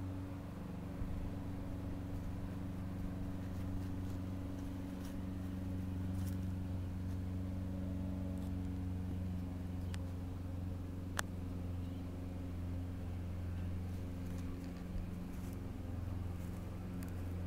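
A steady low mechanical hum, with a few faint clicks and one sharper click a little past the middle.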